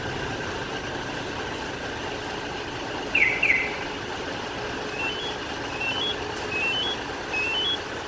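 Magicar G7 two-way remote-start alarm sounding: two short falling chirps about three seconds in, then a rising three-note electronic beep repeating about once every 0.8 seconds, over a steady hum.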